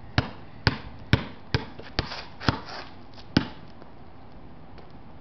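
Basketball being dribbled: about seven sharp bounces in the first three and a half seconds, roughly two a second, then the dribbling stops.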